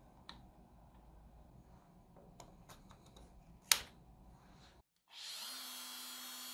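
A few faint clicks and one sharp click, then an electric power-tool motor starts, spins up with a rising whine and runs steadily.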